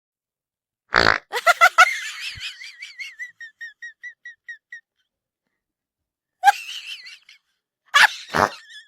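Fake fart sound effects. A short low raspy burst comes about a second in, then a few quick blips and a warbling, whistle-like squeal that pulses about four times a second and fades over about three seconds. Three more short bursts follow, two of them loud near the end.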